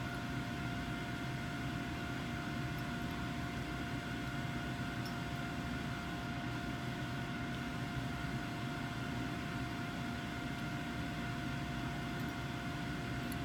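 Steady hum of fans and air handling, with a faint constant whine over it. There are no clicks or knocks from the syringe handling.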